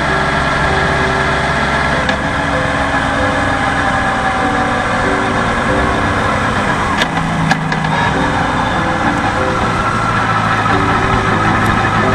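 Motorcycle engine running steadily while riding, with its pitch shifting slightly as the speed changes, over wind and road noise. Two short clicks come a little past halfway.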